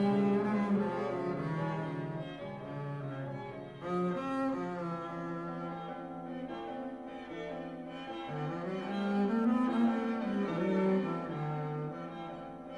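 Slow bowed-string music with sustained low cello notes, one of them sliding upward a little past the middle.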